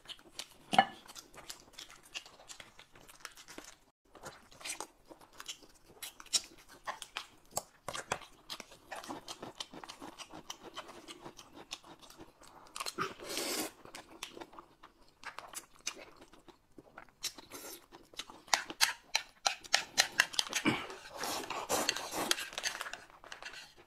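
Close-up eating sounds: chewing and crunching, mixed with the crinkle of plastic snack packets being opened. The sounds come in scattered short clicks and crackles, with a longer noisy stretch about halfway through, and grow busier near the end.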